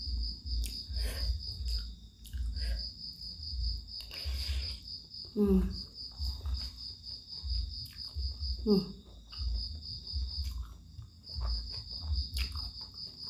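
Eating sounds: noodles and soup being slurped and chewed, with short hums of the voice twice, over a steady pulsing chirp of crickets.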